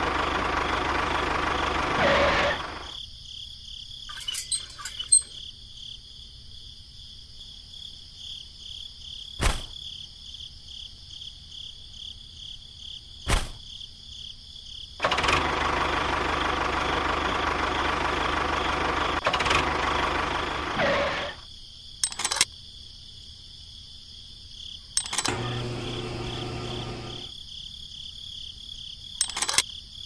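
Small electric motor of a toy model tractor running, loud for a couple of seconds at first and again for about six seconds later on, cutting in and out abruptly. Between the runs a fainter steady high whine continues, with scattered sharp clicks and knocks.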